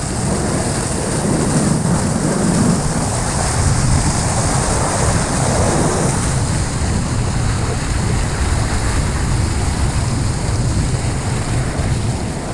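Steady rushing noise of running water, with no clear single events.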